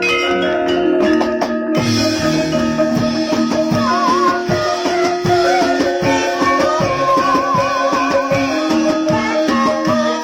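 Javanese Banyumasan gamelan music: struck mallet percussion with drum strokes, and a wavering high melody line above it. The sound grows brighter and busier about two seconds in.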